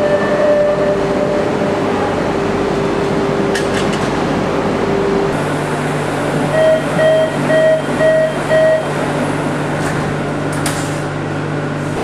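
Steady hum of a train standing with its doors open. Then the door-closing warning of a Barcelona Metro train: five short beeps, about two a second.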